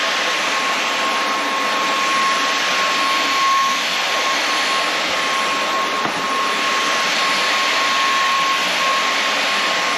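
Inse S610 cordless stick vacuum running on its high setting while vacuuming a rug: a steady rush of air with a constant high motor whine.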